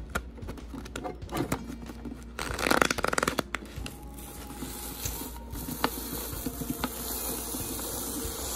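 Mini paper shredder's small electric motor buzzing as it feeds and cuts a sheet of paper into strips. It is loudest in a burst of cutting about two and a half seconds in, then runs on steadily with scattered clicks.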